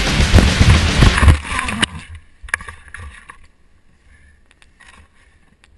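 Mountain bike ride noise, a loud rumble and rattle over a rough dirt trail, ending abruptly in a crash about two seconds in. Afterwards only faint rustling and snapping of branches and leaves as the fallen rider moves in the undergrowth.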